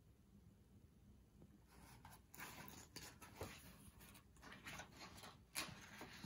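Faint paper rustling and soft taps from a hardcover picture book being handled and its page turned, starting about two seconds in, with a sharper flick of the page near the end.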